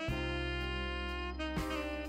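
Instrumental background music in a jazz style: long held notes over a steady bass, with a change of note about one and a half seconds in.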